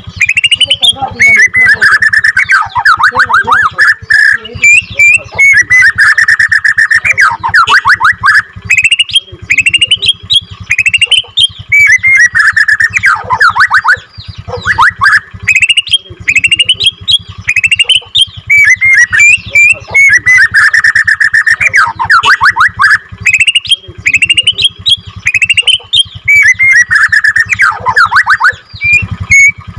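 Bornean white-rumped shama (murai batu) singing loudly in repeated phrases about every four to five seconds, each a long rolling trill followed by quick falling and rising whistled notes.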